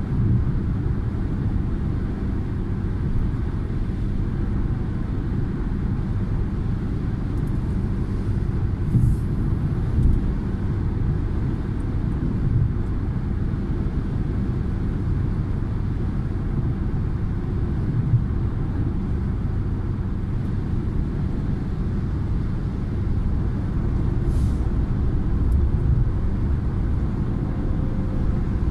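Steady low rumble of tyre and engine noise heard inside a car's cabin while it drives at motorway speed.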